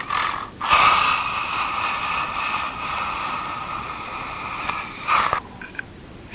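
A man snoring on purpose into a telephone: a short snort, then one long drawn-out snore of about four and a half seconds that slowly fades.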